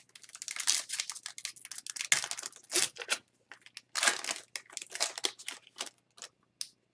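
Foil wrapper of an Upper Deck hockey card pack being torn open and crinkled by hand. The crackling comes in two spells, the first in the opening couple of seconds and the second from about four seconds in, with small ticks of handling between.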